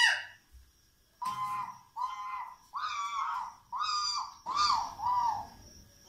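A talking-parrot sound played through a phone's speaker: six short, high-pitched squawk-like calls, each rising and falling, a little under a second apart.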